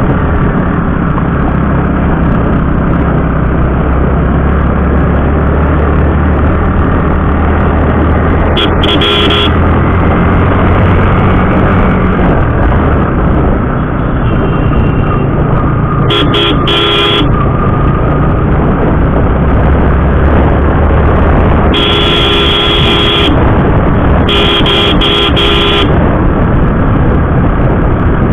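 Steady engine and road noise of a motorcycle being ridden, with a vehicle horn honking four times, the later honks as a long blast and a run of short toots.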